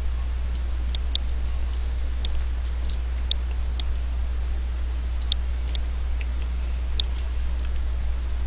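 Scattered single clicks of a computer mouse, about a dozen at irregular intervals, over a steady low electrical hum.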